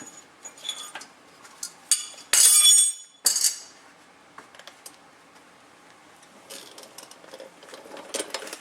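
Metal hand tools clinking and rattling as they are handled, with a loud clatter about two and a half seconds in and a second, shorter one just after.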